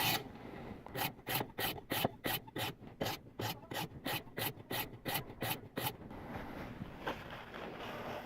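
A 400-grit sharpening stone on a ViperSharp guided sharpening system stroked quickly across a knife's S30V steel edge: rasping passes about four times a second, which stop about six seconds in, followed by faint scraping.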